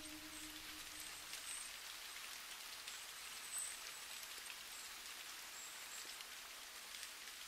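Faint crackling hiss: many fine ticks, like light patter, with a few short high-pitched chirps scattered through it. A held music note fades out in the first half-second.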